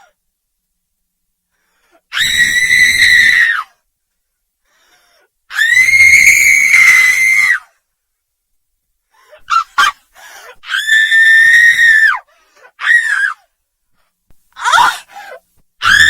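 A woman screaming in terror, very high-pitched. There are three long screams of about one and a half to two seconds each, broken by silent pauses, and shorter, sharper shrieks and gasping cries in the second half.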